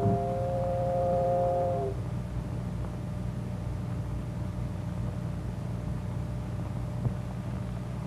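A fishing boat's whistle sounding one chord of several steady tones for about two seconds, over a steady low hum.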